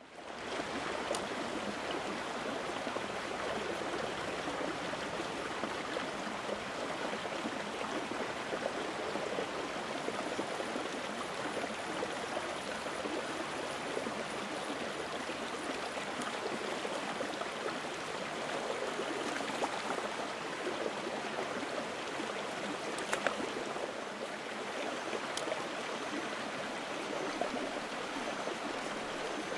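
Running water: a steady, even rush of flowing water, with a few faint clicks over it.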